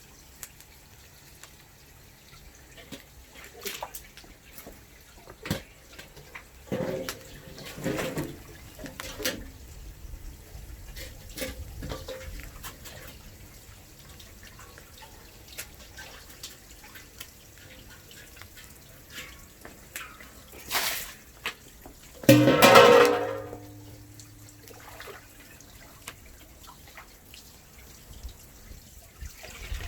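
Water running and splashing in a sink, with scattered knocks and clatter of kitchenware. About 22 seconds in comes a loud clatter followed by a short ringing tone.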